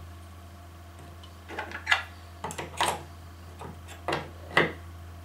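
Hard plastic clicks and knocks, about seven in three seconds and loudest near 2 s and near the end, as a cordless Dremel 8100 rotary tool is seated in the plastic tool-holder clamp of a Dremel Multi-Vise 2500. A steady low hum runs underneath.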